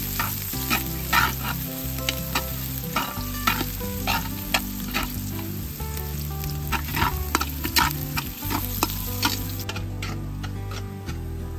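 Minced garlic sizzling in hot oil in a metal pot while being sautéed, with a metal utensil scraping and clinking against the pot as it is stirred, about two clinks a second.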